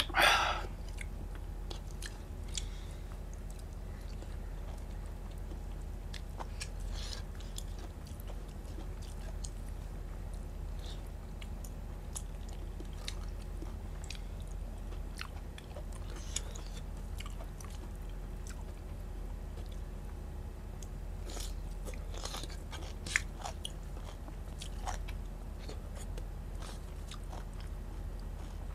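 A person chewing and eating rice and curry by hand, with faint scattered mouth clicks and smacks over a steady low hum. A short, loud breathy sound comes right at the start.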